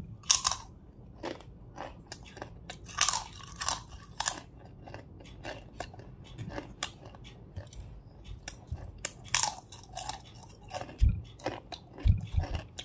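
A person biting into and chewing hard white slate clay, with irregular sharp crunches throughout. The loudest come just after the bite, around three to four seconds in, and again around nine and a half seconds in.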